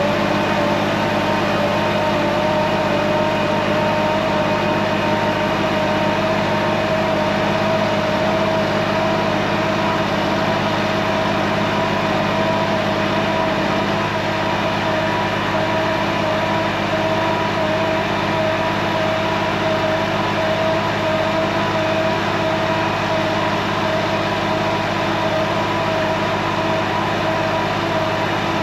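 Semi truck running steadily while its trailer unloads loose bulk material out the back, a steady whine riding over a low engine hum.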